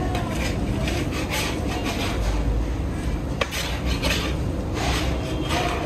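A long-handled metal ladle scraping and turning rice in a large steel cooking pot: a series of rasping scrapes about once a second, with a sharp metallic knock about halfway through, over a steady low rumble.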